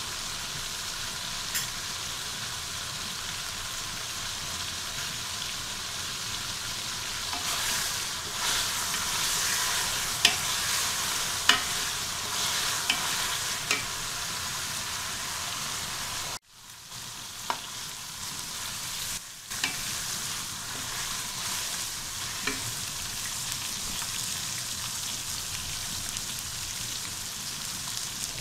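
Chicken pieces sizzling steadily in spiced oil and their own juices in an aluminium pot, stirred now and then with a wooden spoon, with a few sharp clicks over the hiss. The sizzle drops out for a moment about halfway through.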